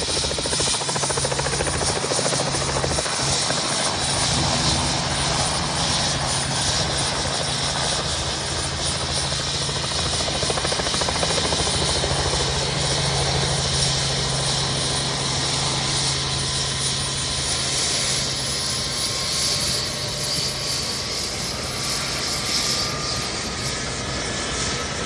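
Helicopter running steadily, a dense continuous noise over a low hum. In the last several seconds a faint whine slowly rises in pitch.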